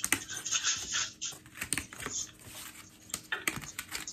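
Cardboard paddle being twisted round by hand to wind up its rubber band on a cardboard frame: irregular light clicks and taps of cardboard, with a short scraping rustle near the start.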